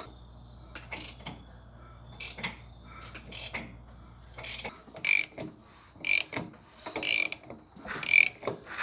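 Hand ratchet on a large crankshaft-nut socket clicking in short bursts, about one or two a second, as it is swung back and forth to turn a Yanmar two-cylinder diesel over by hand. The clicks grow louder after about five seconds. The engine is being rotated to find top dead center on the compression stroke for setting the valves.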